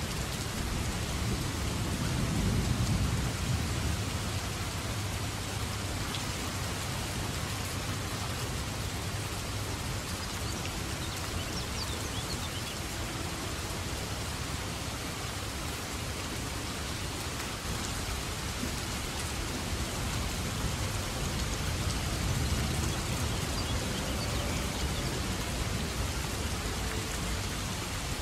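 Steady rain falling, a dense even hiss of drops, with low rumbles of thunder swelling under it twice.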